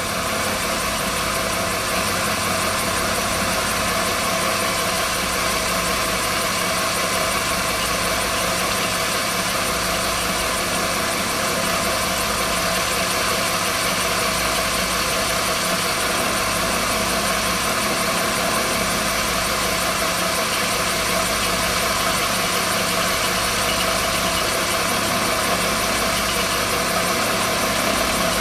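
Vertical milling machine running steadily, its end mill cutting a slot in a metal guide rail: an even machine drone that holds the same level throughout.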